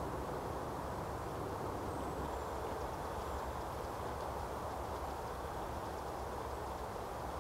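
Steady outdoor background noise with a low rumble, even throughout, with no distinct events.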